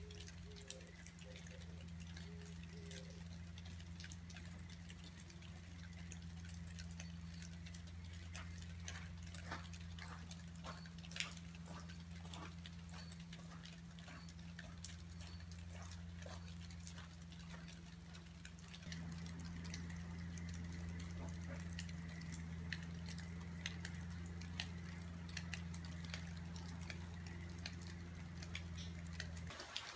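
Rain dripping: irregular drops ticking and pattering over a faint hiss, with a steady low hum underneath.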